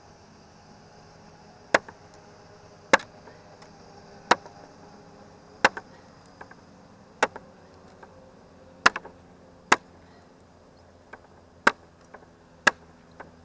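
A Ka-Bar Parangatang parang chopping into old treated-lumber railing slats: about nine sharp chops, irregularly spaced roughly a second to a second and a half apart, with a few lighter knocks between them.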